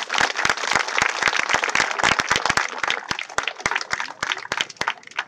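A crowd applauding: many hands clapping together, thinning to scattered claps near the end.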